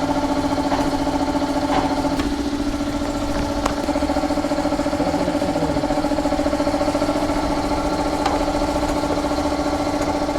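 Motorcycle engine idling steadily, with an even, pulsing note that holds one pitch throughout.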